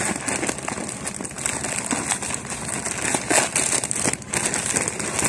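Plastic courier bag crinkling and rustling as hands pull it open, an irregular crackle throughout.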